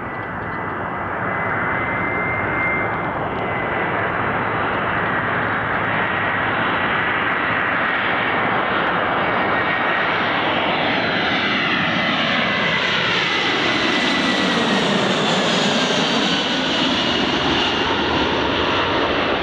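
Jet airliner's engines running loud and steady, with a thin high whine over the roar. About halfway through, a hollow swish sweeps down in pitch and back up again as the aircraft passes closest.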